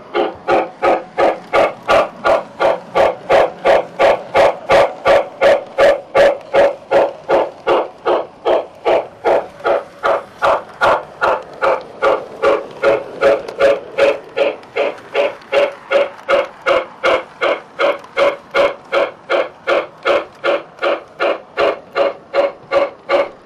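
O gauge model train running along the track, giving a steady pulsing beat about three times a second.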